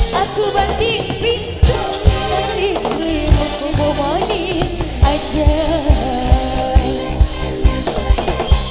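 Live band music: a woman singing over drum kit, bass and electric guitars, with a steady drum beat that comes forward in the second half.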